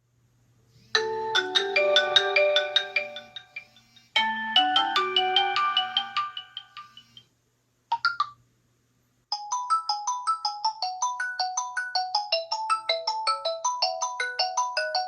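Stock smartphone ringtones sounding on incoming calls one after another, each melody cut short as the call ends. Two melodic tunes of a few seconds each are followed by a brief snatch, then a quick, bright run of short mallet-like notes.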